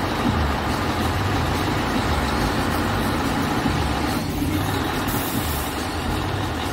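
Scania R tipper truck's diesel engine running steadily, with a brief high hiss about five seconds in.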